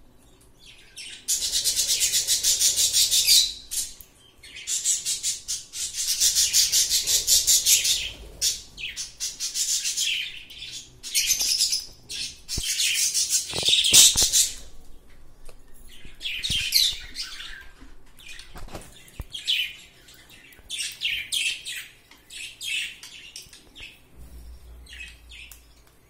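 Cockatiels calling close by: long, raspy, fast-pulsed chattering calls in the first third, then a string of shorter ones. A few sharp clicks come around the middle.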